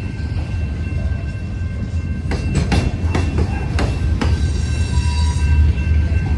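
Freight train rolling past: a steady low rumble with irregular clacks of wheels over rail joints and a thin, steady high wheel squeal.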